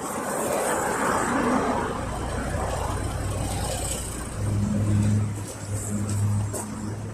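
Inside a Yutong ZK6116HG city bus: the rushing road noise dies away as the bus slows. A low steady hum of the idling compressed-natural-gas powertrain takes over, with a deeper drone that comes and goes in the second half and a click or two near the end.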